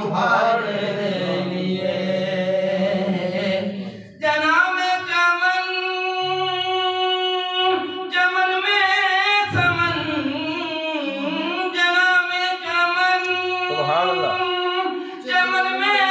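A man singing an Urdu naat, a devotional poem. About four seconds in he pauses briefly, then holds long high notes with wavering, ornamented turns.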